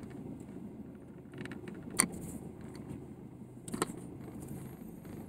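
Car cabin noise while driving: a steady low rumble from the engine and road, with a few sharp clicks or rattles, the loudest about two seconds in and another near four seconds.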